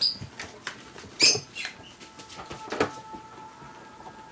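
Dalmatian puppies scrambling after a laser dot, their movement making light, rapid clicks and patter. A short high squeak about a second in is the loudest sound.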